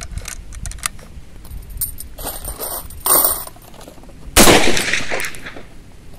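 US M1 carbine firing a .30 Carbine round: one sharp shot about four and a half seconds in, ringing out for about a second. A shorter loud burst comes about a second and a half before it, with a few small clicks early on.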